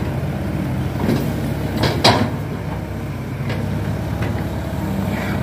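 Excavator diesel engine running steadily, with a single sharp clank about two seconds in.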